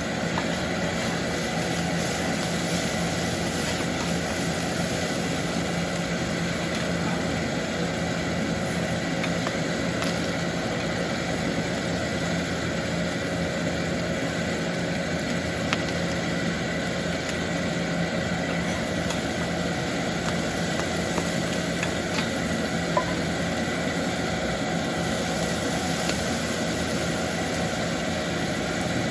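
Beef offal sizzling steadily on a hot iron griddle over a steady mechanical hum, with a few faint clicks of utensils on the metal.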